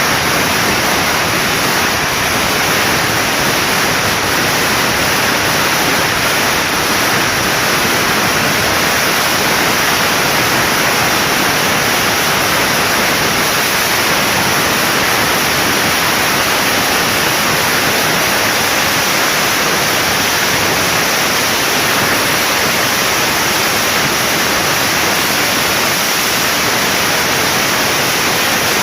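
A long string of firecrackers going off without a break, thousands of bangs running together into one dense, steady crackle.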